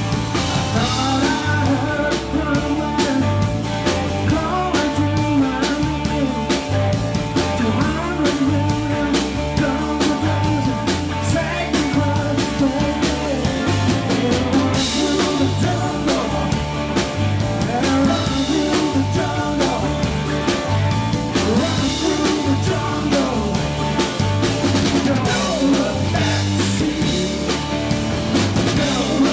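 Background music with a steady drum beat and singing.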